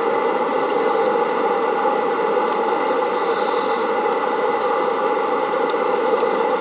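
Steady mechanical hum and rush of the plant's running intake pumps heard underwater, with a couple of steady tones and a few faint ticks.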